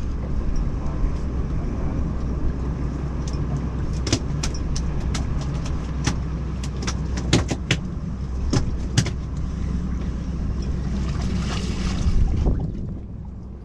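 Steady low rumble on a fishing boat, with a scattering of sharp clicks and knocks through the middle. The rumble drops away abruptly about a second before the end.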